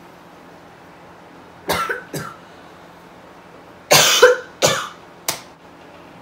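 A young woman coughing: two coughs a little under two seconds in, then a louder fit of three coughs about four seconds in, the first of them the loudest.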